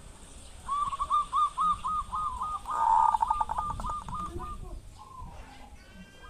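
Zebra dove calling: a quick run of short, arched cooing notes, about five a second, that grows louder and rougher around the middle and fades after about four seconds.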